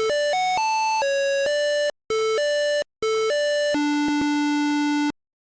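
PC speaker beeping out a simple melody, one square-wave note at a time, driven by a hobby operating system. There are two brief breaks in the tune. It ends on a long, lower note of just over a second that cuts off abruptly.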